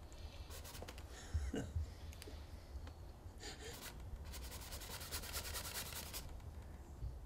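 Oil-painting brush scratching across a bare wooden panel in short strokes, in several bursts, the longest lasting about two seconds near the end. A soft low thump about a second and a half in.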